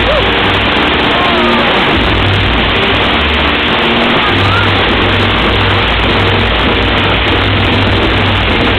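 A fireworks display going off in a dense, continuous barrage of crackles and bursts, loud and overloaded on the microphone, over the show's music with sustained low notes that change in steps. A few short whistling glides cut through.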